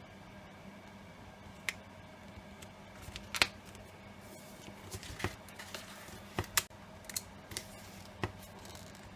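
Cardstock and paper pieces being handled and pressed down on a work surface: scattered light clicks and taps, about a dozen, the sharpest about three and a half seconds in.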